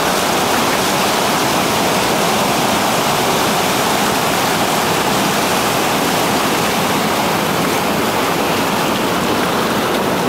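Whitewater river rapid: loud, steady rushing of water pouring through the rapid.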